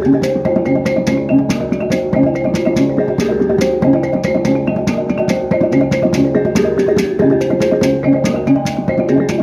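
Kulintang ensemble playing: a row of small bossed gongs struck in a quick, repeating melodic pattern, with a steady, fast beat of sticks on the dabakan goblet drum and the ring of the larger hanging gongs.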